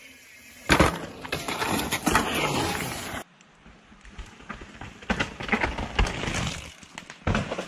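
Mountain bike crash: a sudden hard impact about a second in, followed by a couple of seconds of scraping and clatter. After an abrupt cut comes a run of scattered knocks and rattles of a bike on rough ground, with another hard hit near the end.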